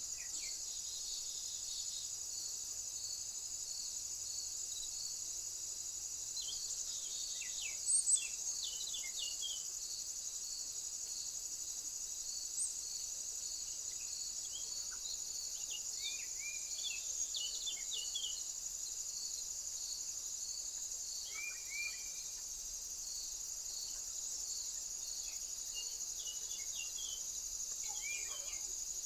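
Steady high insect chorus with a cricket-like chirp repeating at an even pace, and small birds giving short chirps now and then, a loud pair about eight seconds in.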